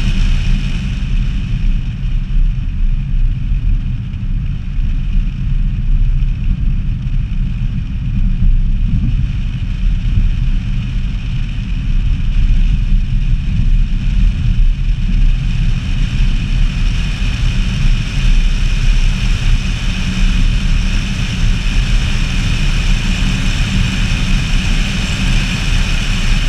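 Wind rushing and buffeting over a camera mounted on the outside of a moving Peugeot 106, with the car's engine and tyre noise under it. A loud, steady low rumble with no gear changes or sudden events standing out.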